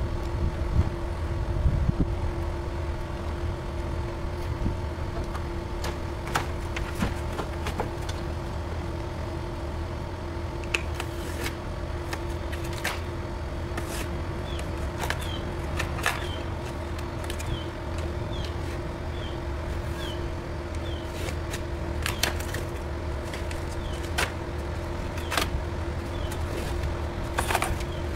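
A steady motor hum runs throughout, with scattered knocks and taps. In the middle, a short high chirp repeats about once a second.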